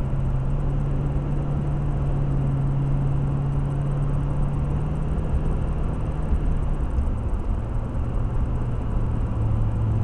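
Car engine drone and tyre noise inside the cabin of a car cruising on an open road. The engine's hum drops a little in pitch about seven seconds in.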